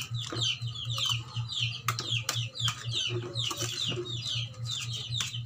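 Chicks peeping continuously, rapid short high calls falling in pitch, a few each second. A few sharp clinks of spoon and fork on a plate.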